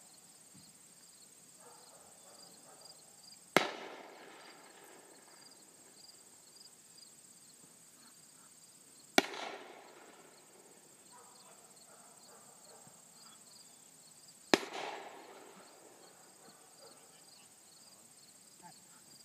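Three distant gunshots about five and a half seconds apart, each with a short echo, marking the falls of a triple mark for a retriever at a field trial. Faint insect chirping underneath.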